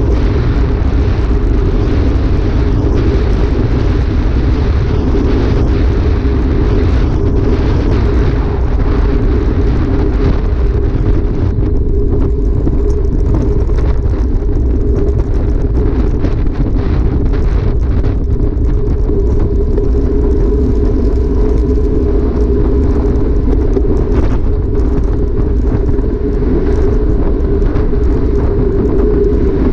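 Steady wind rumble on the microphone of a handlebar camera on a road bike riding at speed, mixed with tyre noise on asphalt.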